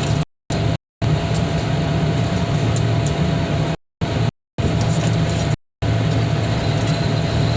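Heavy-equipment diesel engine running steadily with a deep hum, and a few faint clicks. The sound drops out to complete silence for a split second five times.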